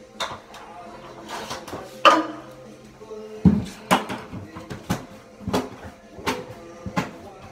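Drywall knife clacking and scraping against a plastic bucket of joint compound: a string of sharp knocks, coming about every half second to a second in the second half.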